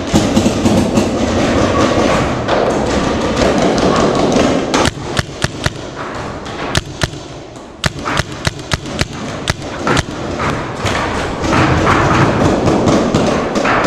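Paintball markers firing in scattered single shots and quick strings of pops, thickest between about five and ten seconds in, over a steady rustling noise.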